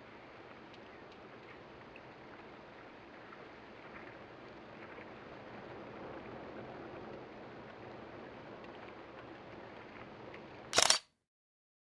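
Faint steady outdoor hiss, then near the end a camera shutter firing a quick burst of a few clicks, much louder than the background, which cuts off into silence.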